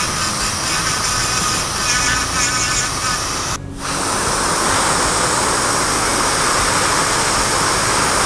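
Steady, loud airy hiss from dental chair equipment. It cuts out briefly about three and a half seconds in, then resumes.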